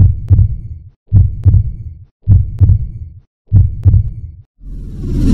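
Heartbeat sound effect: four deep double thumps, lub-dub, about once a second. Near the end a rising whoosh swells in.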